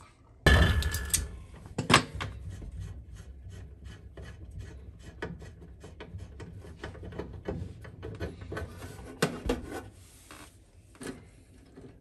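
Metal clicking and scraping as the flexible gas connector is worked loose and pulled off a furnace gas valve, with a heavy thud about half a second in and a sharp knock a second later.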